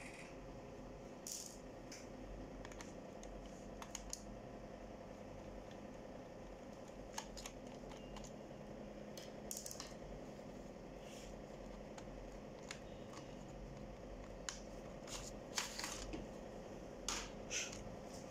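Scattered light clicks and scrapes of a screwdriver and fingers working on the plastic bottom case of an HP ProBook 4530 laptop during disassembly, becoming more frequent near the end, over a steady low hum.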